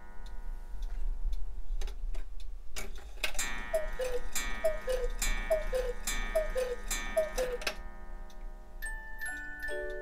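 Black Forest cuckoo clock calling the hour: a run of two-note falling cuckoo calls about a second apart, each with a ringing strike. Near the end the clock's musical movement starts playing a tune.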